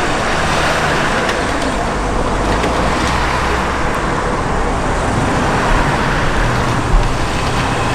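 Road traffic passing: a steady rush of tyre and engine noise with a low engine hum coming in about two seconds in.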